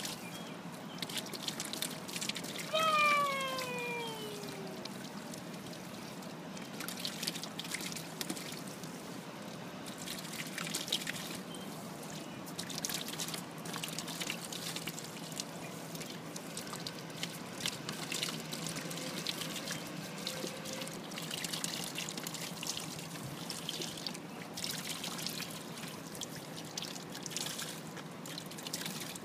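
Water splashing and dribbling in a small paddling pool as a child plays in it, with many small splashes throughout. About three seconds in, a short voice sound falls in pitch, most likely from the child.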